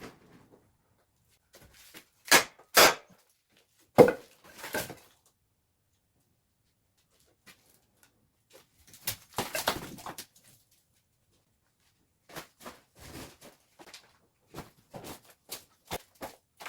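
Scattered knocks and thuds: two sharp strikes about two seconds in and another at four seconds, a denser clatter near the middle, then a run of lighter taps and clicks.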